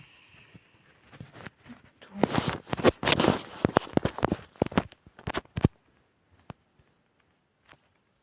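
A flurry of sharp, irregular knocks and clicks mixed with rustling, starting about two seconds in and lasting some three and a half seconds, then a few scattered single clicks.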